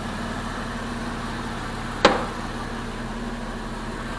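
Freshly swapped Chrysler 3.7 V6 in a Jeep Liberty idling steadily. A single sharp click or knock sounds about halfway through.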